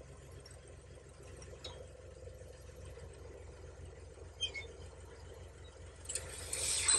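Dump truck engine running steadily at a low hum as the loaded bed begins to tilt up to tip gravel. About six seconds in, a short rushing hiss rises and fades.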